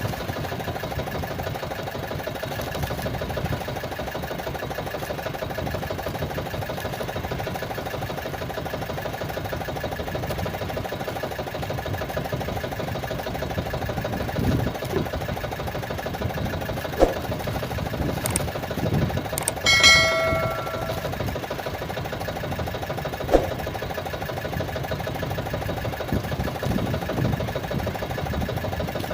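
Small engine running steadily, with a couple of sharp knocks and a brief ringing tone about two-thirds of the way through.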